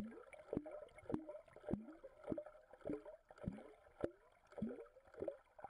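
Pull-cord motion mallard decoy's rubber feet kicking the water, heard from under the surface as a regular series of plops, each falling in pitch, nearly two a second.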